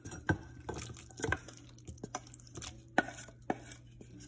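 Wooden spatula knocking and scraping against a metal pan as a thick cooked tomato and onion mixture is scraped out into a glass bowl: about a dozen irregular sharp knocks.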